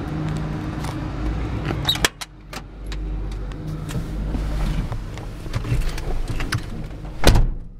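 A pickup truck's door being opened with a sharp click about two seconds in, followed by scattered clicks and knocks of handling in the cab and a loud thump near the end, over a low steady rumble.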